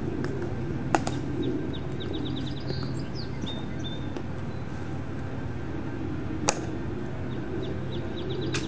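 Two sharp clicks from the Tomb Guard sentinels' drill, about five and a half seconds apart, with small birds chirping in quick runs over a steady low outdoor hum.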